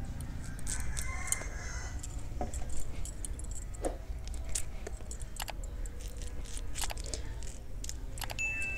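Cauliflower florets being cut apart on a boti, a curved iron blade on a stand. Scattered crisp snaps and clicks come as the stems are sliced, and cut pieces land in a steel plate.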